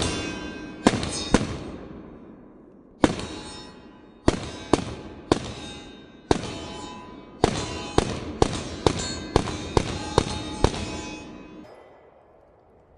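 A string of about sixteen rapid pistol shots at uneven spacing, quickening to roughly two shots a second in the second half, each followed by a metallic ringing. The string stops shortly before the end.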